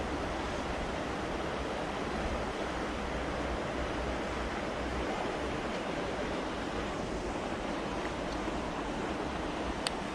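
Steady rushing wind noise buffeting the microphone, with a rumble underneath. There is one short sharp click near the end.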